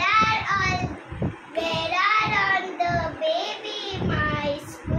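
A young girl singing a children's rhyme in a high child's voice, phrase by phrase with short breaks between lines.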